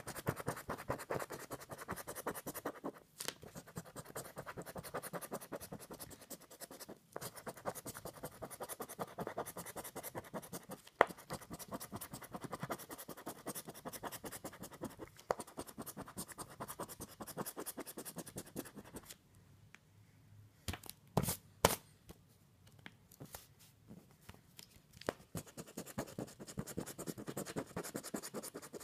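Latex coating being scraped off a lottery scratch-off ticket in quick, rapid strokes. The scraping stops for several seconds about two-thirds through, with a few sharp taps in the pause, then starts again near the end.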